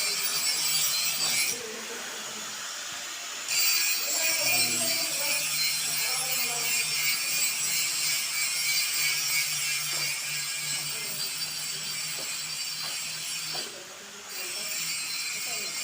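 Electric arc welding on pipe: a steady crackling hiss from the arc. The arc breaks off for about two seconds near the start and again briefly near the end, then strikes again.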